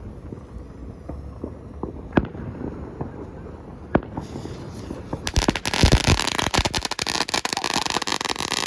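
Magic whip novelty firecracker going off: a hiss starts about four seconds in, then from about five seconds in a rapid, dense string of sharp crackling pops.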